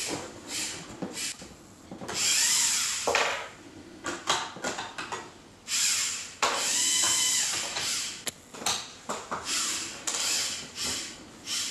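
LEGO Mindstorms EV3 TRACK3R robot's electric motors whirring in repeated bursts as it drives and turns on its tracks. The whine rises and falls in pitch with each move, and there are short plastic clicks between the runs.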